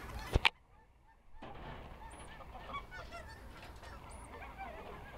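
Geese honking, many overlapping calls in the background. Two sharp knocks come about half a second in, followed by a brief near-silent drop-out before the calls resume.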